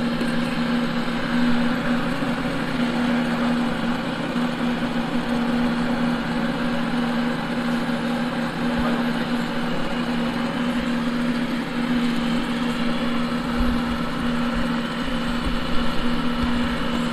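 Air blower running steadily with a constant hum, forcing a draft through a coal-fired melting furnace, with a continuous rush of air and fire.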